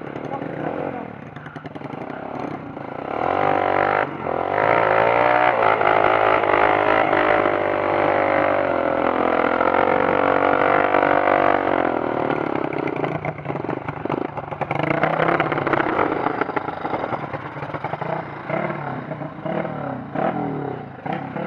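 Trail motorcycle engine revving hard under load, loudest from about three to twelve seconds in with its pitch climbing and falling, then easing off into shorter, uneven bursts of throttle.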